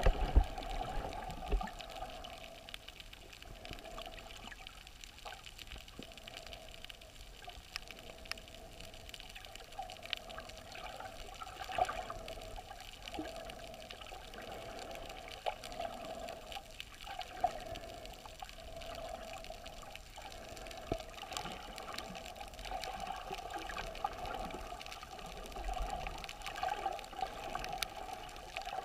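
Water sloshing and gurgling, heard muffled from underwater through the camera's housing, with many small scattered clicks and a few louder swells.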